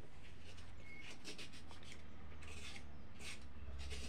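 A small knife blade scraping the skin off a fresh bottle gourd (lauki), in short, irregular strokes.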